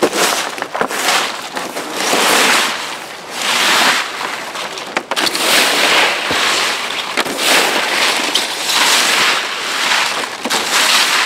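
Stiff-bristled broom sweeping dry leaves and debris across a camper trailer's roof: repeated scraping, rustling strokes, roughly one every second or so.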